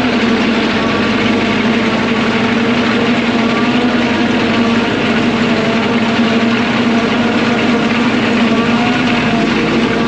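Heavy farm vehicle's engine running at a steady, unchanging pitch.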